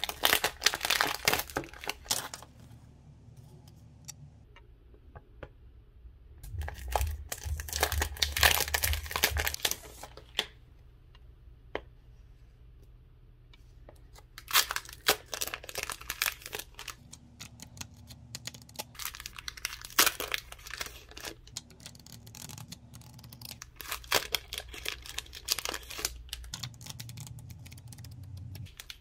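Clear plastic sticker packaging crinkling and rustling as sheets are handled, in several bursts separated by quieter gaps.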